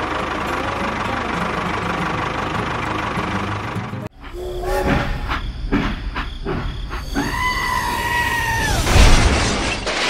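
A steady tractor-engine sound effect cuts off abruptly about four seconds in. A series of knocks follows, then a two-tone steam-train whistle held for about two seconds, then a loud crash as a toy train smashes into a barn.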